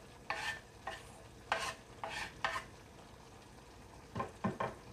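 A wooden spatula scrapes and stirs chicken curry with tomatoes in a clay pot. There are about five strokes in the first two and a half seconds and a few lighter knocks near the end, over the faint sizzle of the curry cooking.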